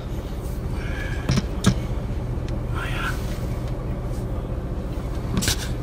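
Steady low rumble and hum of a vehicle's engine running, heard from inside the vehicle, with a couple of sharp clicks about a second and a half in and another near the end.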